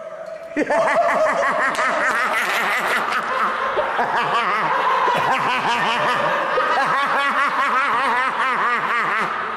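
Several people laughing, breaking out about half a second in and going on without a break.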